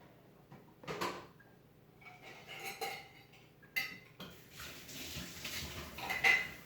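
A utensil clinking and knocking against a bowl while slime ingredients are handled, with separate knocks about a second in, near four seconds and just before the end, and short ringing clinks in between.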